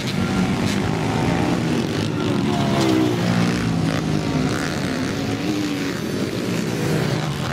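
Motocross dirt bike engines running hard round the track, revving up and down through the gears, with a rising rev about halfway through.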